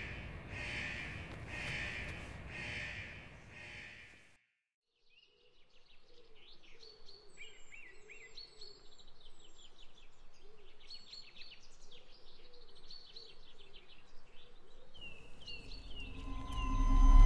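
Crows cawing about once a second, then after a short silent gap songbirds chirping and twittering over a lower warbling call. Near the end a loud swelling tone comes in.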